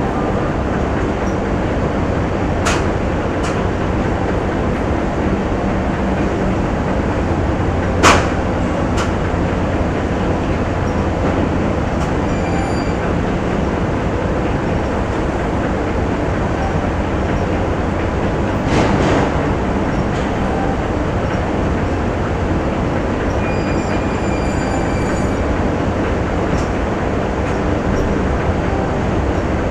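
Steady factory machinery din with a low hum and occasional sharp metallic clanks, the loudest about eight seconds in.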